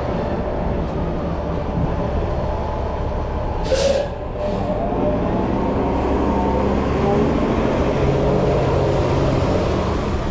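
A train running with a steady rumble and faint wavering squeals. About four seconds in come two short, sharp hisses close together.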